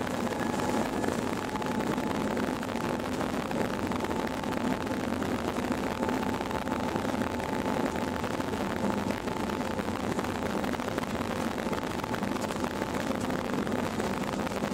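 Steady jet engine and cabin noise heard from inside a passenger airliner rolling on the ground, with a faint steady whine over the rumble.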